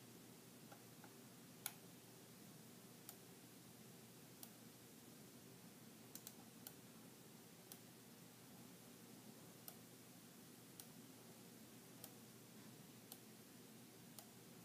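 About a dozen faint computer mouse button clicks at irregular intervals, the loudest about two seconds in, over quiet room tone with a low steady hum.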